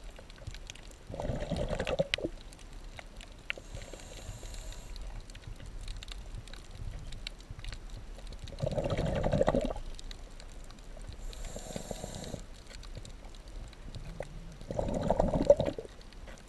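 Scuba diver breathing through a regulator underwater: three loud, gurgling rushes of exhaled bubbles about six seconds apart, each followed by a fainter hiss of the regulator on the in-breath.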